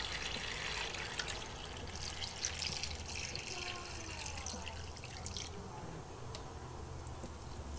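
Water being poured into a cooking pot over browned pork. The pouring dies down about five and a half seconds in.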